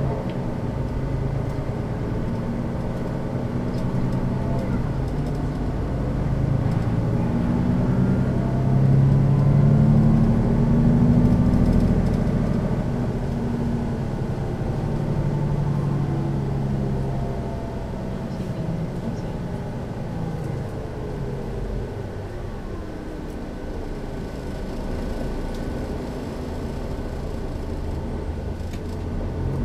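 Setra S 415 NF city bus's diesel engine and ZF gearbox under way. The engine pulls harder and louder around the middle, then eases off with a falling gearbox whine, and picks up again near the end.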